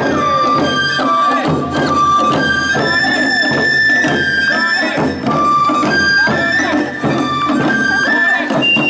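Japanese festival hayashi music for a float procession: a flute plays long held notes that step between a few pitches, over a run of drum beats.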